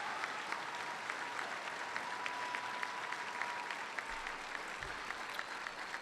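A large audience applauding steadily, a dense patter of clapping that eases a little near the end.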